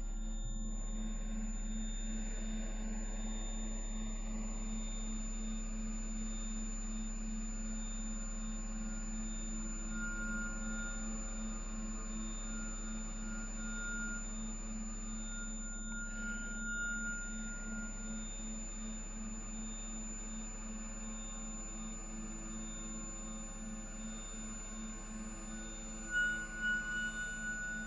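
Electronic music of sustained, pure synthesized tones: a low drone under a softly pulsing middle tone and thin high whistling tones. A brighter high tone comes and goes from about ten to eighteen seconds in, and again near the end.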